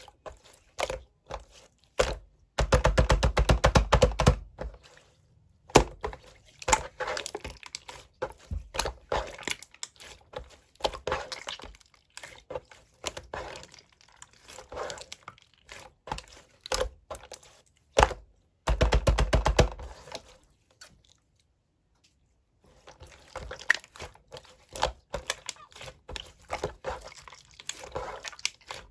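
Clear pink slime being squished and pressed by hand, making sticky clicks and small air-bubble pops. Twice, about 3 s in and about 19 s in, the popping turns fast and dense for a second or two, and it stops briefly around 21 s.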